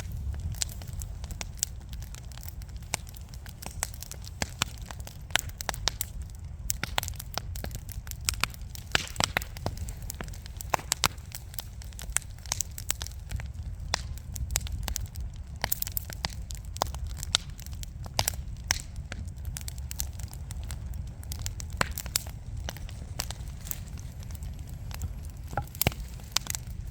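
Wood fire burning in a fireplace: irregular sharp crackles and pops from the burning logs, several a second at times, over a steady low rumble of the flames.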